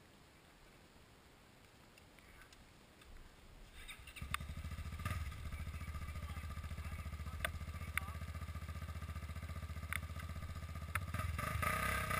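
A quad (ATV) engine starts about four seconds in after a couple of short sputters, then idles with a fast, even putter and a few sharp ticks, and is revved a little louder near the end.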